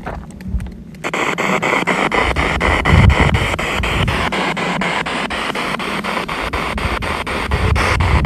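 Spirit box radio scanner sweeping through stations. It switches on about a second in: a steady hiss of static chopped by fast, even clicks, about five a second.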